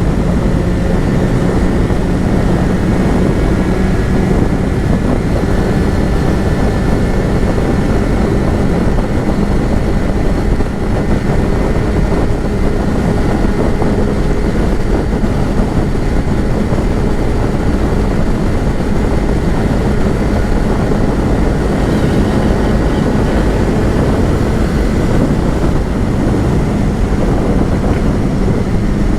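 Yamaha XJ6's 600cc inline-four engine running steadily as the motorcycle cruises, under a constant rush of wind noise.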